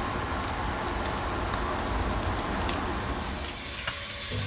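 Fish sizzling on an electric grill: a steady hiss with a few faint pops, easing slightly near the end.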